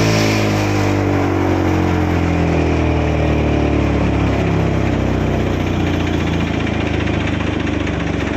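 Tractor engine running at a fast speed, its pitch sliding gradually lower over the first few seconds and then holding steady.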